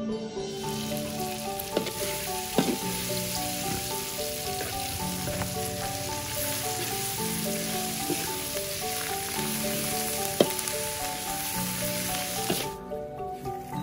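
Sliced turmeric leaves sizzling as they are stir-fried in a large metal wok, with a metal spatula scraping and knocking against the pan now and then. The sizzle starts about half a second in and stops shortly before the end. Light background music with mallet-like notes plays under it.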